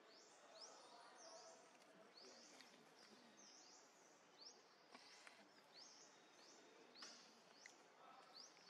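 Faint outdoor ambience with short, high chirps from birds, repeating about once or twice a second, and a few faint clicks.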